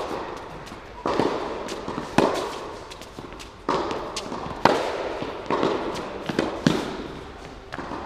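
Tennis rally: the ball is struck by rackets and bounces on a hard court, a sharp pop about once a second. Each hit echoes in a large indoor hall.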